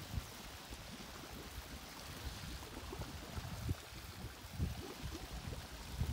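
Borewell water running out of a pipe outlet into a farm pond: a steady trickling pour, with irregular low rumbles over it.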